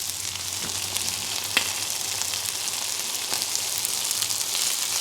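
Chicken thighs and waffle fries sizzling on a Blackstone flat-top griddle: a steady frying hiss, with a couple of light clicks about a second and a half and three seconds in.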